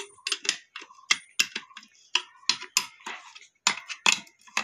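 Ratchet wrench with socket clicking as it turns the nuts on a power tiller's clutch pressure cover: a string of sharp metallic clicks, irregularly spaced at about two or three a second.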